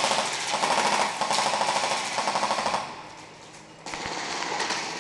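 Airsoft electric guns firing full-auto, a rapid clatter in several bursts, falling quieter about three seconds in.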